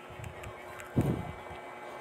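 Faint fairground background noise with a thin steady hum, and a single brief muffled thump about a second in.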